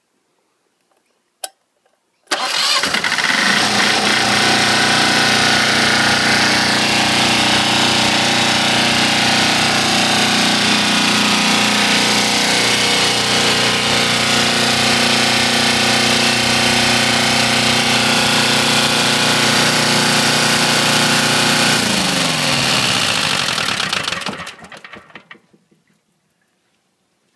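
KOOP KDF292F 22 HP air-cooled two-cylinder V-twin diesel engine on a cold start. A single click comes first. About two seconds in, the engine starts abruptly and runs at a steady speed for about twenty seconds. Then it is shut off and runs down to a stop, its pitch falling.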